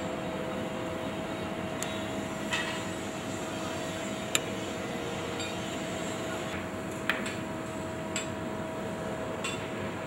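Steady low hum of a hushed city, with a faint constant tone and a few scattered sharp clicks.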